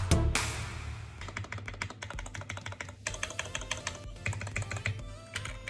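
Typing on a custom-built mechanical keyboard: a fast, irregular run of key clicks.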